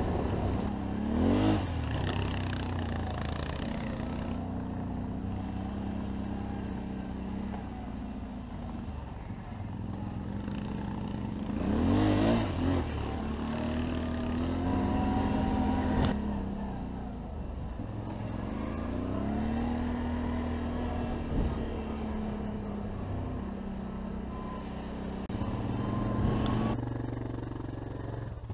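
Can-Am quad's V-twin engine running under way, its note rising and falling with the throttle, with sharp revs about a second in, around twelve seconds in and around twenty seconds in.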